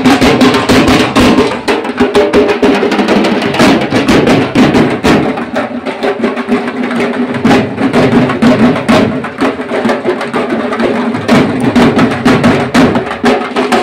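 Loud, rapid drumming, with dense fast strokes over a steady low tone.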